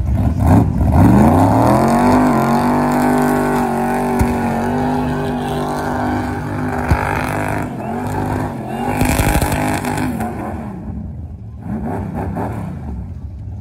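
A full-size van's engine revs up over about two seconds and is held at high revs during a burnout, its rear tyres spinning on the pavement. About ten seconds in the revs drop off, followed by a couple of short, weaker blips.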